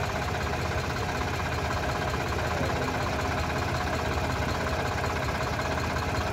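Sonalika RX 50 DI tractor's diesel engine running steadily, driving the hydraulic pump as the tipping trailer's bed is raised to dump its load.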